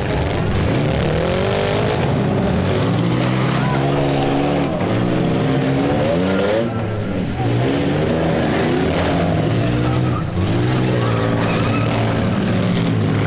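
Several demolition-derby SUV and minivan engines revving up and down over one another, loud and continuous.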